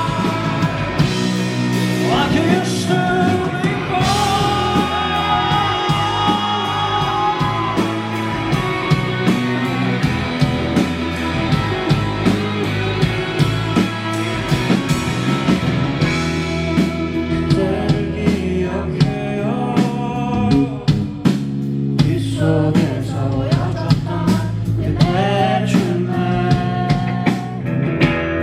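Live rock band playing a song at full volume, with drum kit, bass, electric guitar and a singer's voice over a steady beat.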